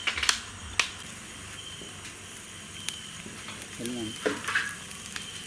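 Chicken sizzling on a grill: a steady hiss with a few sharp crackles in the first second. A short voice is heard about four seconds in.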